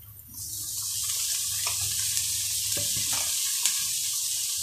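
Diced bell peppers hitting a frying pan of hot oil and onions, starting a sizzle suddenly just after the start that then holds steady. Short clicks and scrapes of utensils stirring in the pans sound over it.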